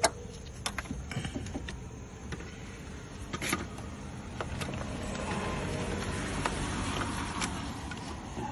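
A few sharp clicks and knocks from parts and hand tools being handled around the engine bay. Then a passing vehicle's steady noise swells for a few seconds and fades.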